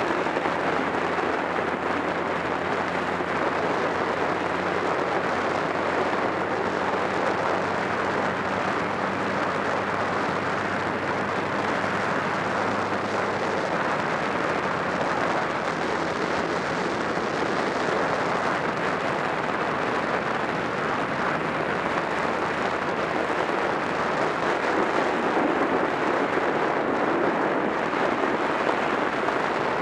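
Wind rushing over the microphone of a camera on a moving motorcycle, steady throughout. Underneath it the Honda Rebel 250's air-cooled parallel-twin engine runs with a faint steady note that fades out about halfway through.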